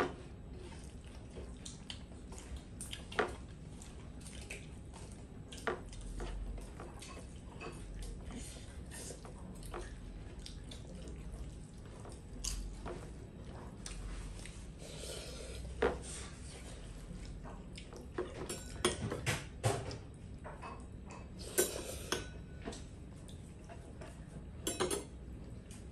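Spoons and metal plates and bowls clinking and scraping during a meal, in scattered sharp taps that come more often in the last several seconds.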